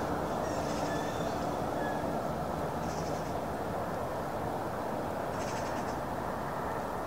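Wind buffeting the microphone in a steady rumble, with a few short, high bird calls over it, about a second in, around three seconds and near six seconds.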